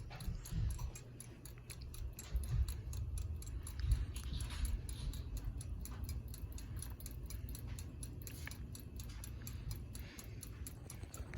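Hunter Westminster ceiling fan running on low, with a rapid, even ticking over a low rumble of moving air.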